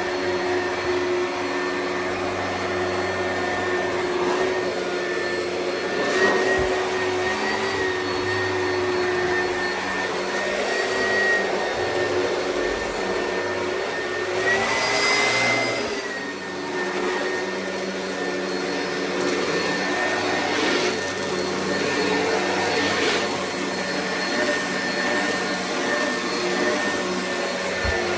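Oreck vacuum cleaner running steadily, its motor whining at a constant pitch that rises slightly for a moment about halfway through.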